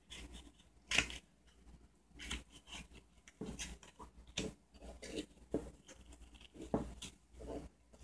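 Irregular small clicks, scrapes and rustles of gloved hands working at a loudspeaker driver's metal frame and paper cone, the sharpest click about a second in.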